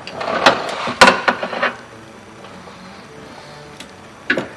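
Sharp plastic clicks and knocks of wiring connectors being unplugged inside a truck door, several in quick succession in the first second and a half and a couple more near the end.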